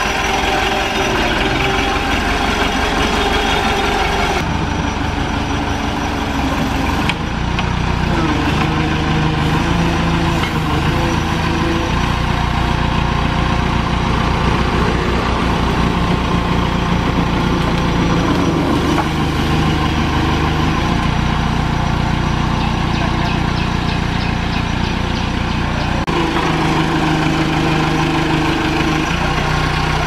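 Diesel engine of a JCB 3CX backhoe loader running steadily, its pitch stepping up and down every few seconds as the backhoe arm works, here lifting a water main pipe.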